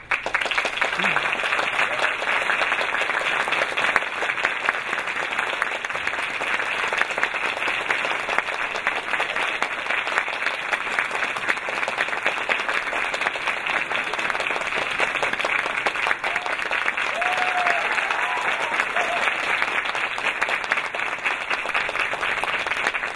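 Large theatre audience applauding, breaking out all at once and holding steady, with a few voices calling out about two-thirds of the way through.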